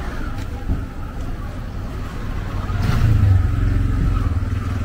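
A motor vehicle's engine passing close by in the street, growing loudest about three seconds in and then slowly fading.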